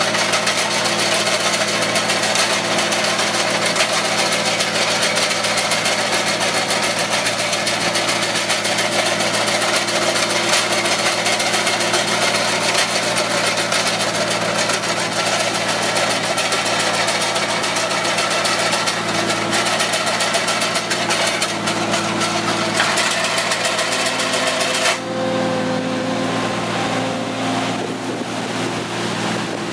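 Avant 635 compact loader's diesel engine running steadily under load while the boom-mounted hedge trimmer's cutter bar runs and cuts through hedge branches, a dense hiss with many small snaps. About 25 seconds in the cutting noise stops suddenly, leaving the engine running.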